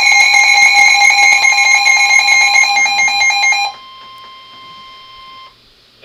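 Several weather alert radios sound their alarms together for a severe thunderstorm warning: a loud mix of steady and beeping high tones. Most cut off about four seconds in, leaving one quieter steady tone that stops about a second and a half later.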